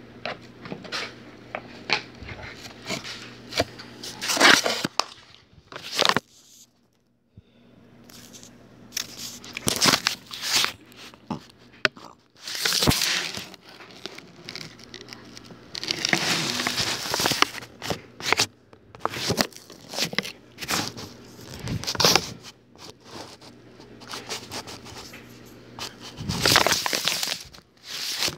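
Irregular crackling and rustling in bursts of up to a couple of seconds, with a faint steady hum underneath.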